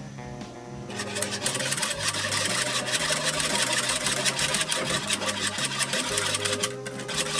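Wire whisk clattering and scraping rapidly against a metal saucepan as a thin chocolate milk mixture is beaten, over background music with a stepping bass line. The clatter picks up about a second in and drops away near the end.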